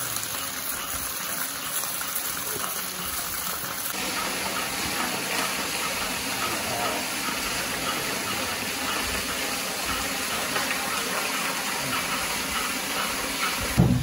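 Waterfall water pouring down steadily in a continuous rush and splash.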